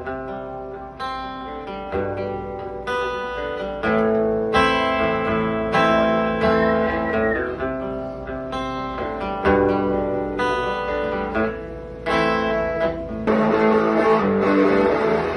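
Acoustic guitar strumming chords, one strong strum about every second, each left to ring, with no singing. Near the end the strummed chords give way to a denser, sustained sound.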